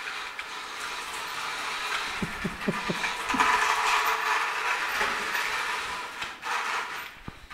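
Small toy car's electric motor and gears whirring steadily as it drives across a tile floor, loudest around the middle. A brief cluster of lower sounds comes about two to three seconds in.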